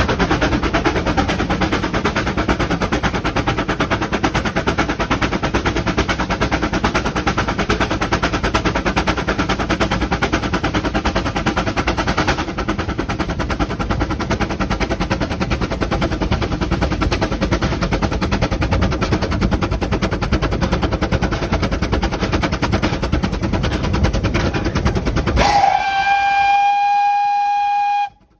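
Vale of Rheidol narrow-gauge steam locomotive running at speed, heard from the footplate: a fast, continuous rattle of exhaust beats and running noise. About three seconds from the end the running noise falls away and the steam whistle sounds one steady note for about two and a half seconds, cutting off sharply.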